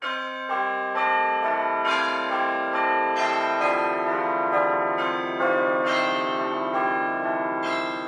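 Music with a bell-like chiming melody, new notes struck about every half second and left ringing over one another.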